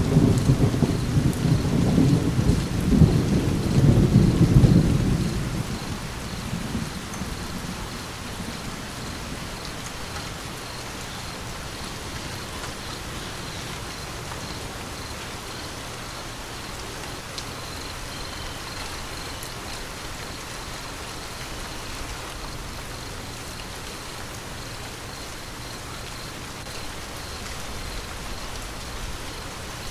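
Steady rain falling with a thunderclap at the start that rolls on as a deep rumble for about five seconds and fades away, leaving the rain on its own.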